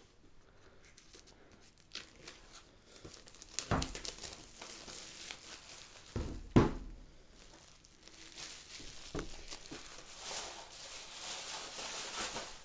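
Plastic shrink-wrap being torn and crinkled off a cardboard product box. Two sharp knocks come as the box is handled, the louder one about six and a half seconds in.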